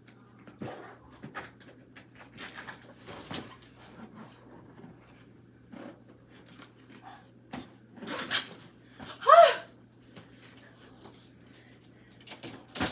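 Scattered rustling, light clinks and knocks of belongings being handled and packed, with a louder rush of noise about eight seconds in and a brief high squeak just after it.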